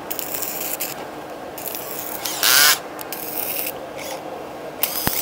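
A screwdriver working a screw out of a small welding machine's metal casing: irregular scraping, rubbing and ratchet-like clicking. There is a louder rasp about halfway through and a sharp click near the end.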